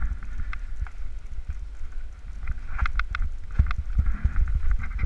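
Mountain bike riding down a rough forest trail: wind buffeting the microphone and a low rumble, with irregular knocks and rattles from the bike over roots and rocks, a cluster of sharper ones a little past halfway.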